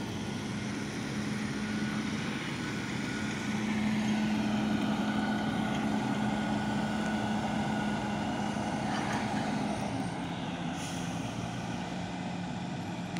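JCB Fastrac tractor's diesel engine running steadily as it pulls a Fendt round baler, growing louder as it comes close about three seconds in and easing off near the end.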